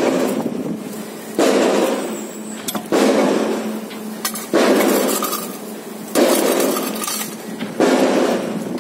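Steel shovel digging repeatedly into gritty soil and stones, one scraping, rattling stroke about every second and a half, each starting sharply and fading off.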